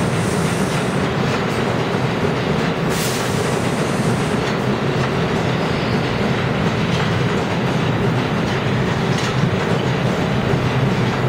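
New York City Subway train running through a tunnel: a steady rumble of wheels on rail with clickety-clack over the rail joints, heard from aboard a moving train. A brief high hiss comes about three seconds in.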